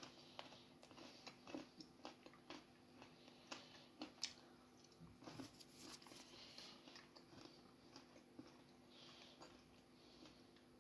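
Faint crunching and chewing of a bite of salted pretzel milk chocolate, with many small sharp crunches scattered irregularly as the pretzel pieces break up.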